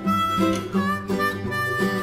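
Background music: a harmonica melody over plucked acoustic guitar, in a steady, bouncy rhythm.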